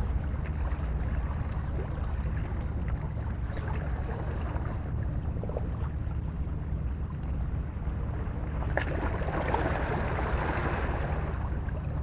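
Small boat's motor running steadily with a low hum, under a wash of water and wind noise that grows a little louder about nine seconds in.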